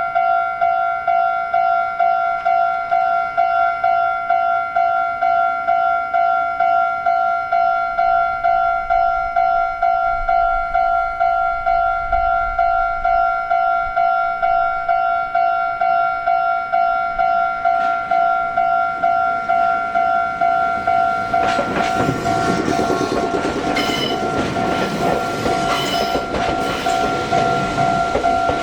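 Japanese level-crossing warning bell ringing its steady, rhythmic two-tone 'kan-kan'. About 21 seconds in, an electric train passes the crossing, its wheels clattering over the rail joints over the bell.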